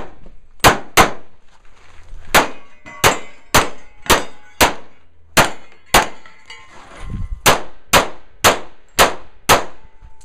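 Rapid pistol fire on a shooting-course stage, about fourteen shots in quick pairs and short strings, with steel targets ringing as they are hit.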